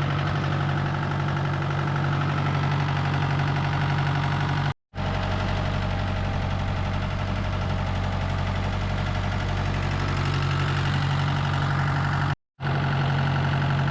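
Tractor engine running steadily at a constant speed, cutting out completely for a moment twice.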